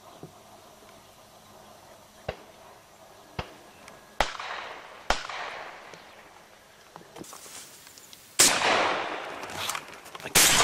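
Shotgun shots: several sharp reports, the first ones fainter and more distant, then two loud close shots near the end, about two seconds apart, each trailing off in an echo.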